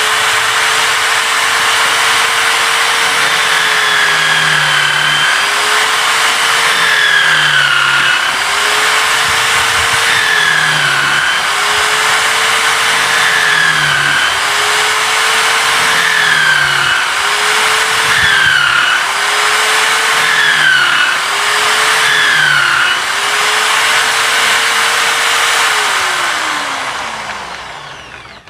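Electric drill mounted in a drill stand, running at full speed while it bores holes in wood. Its pitch sags and recovers about every two seconds as the bit is fed into the wood. Near the end it is switched off and winds down.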